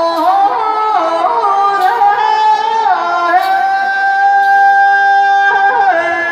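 Male folk singers performing Teja gayan through a microphone and PA: a high, drawn-out sung line that steps between pitches and holds a long, steady note in the middle.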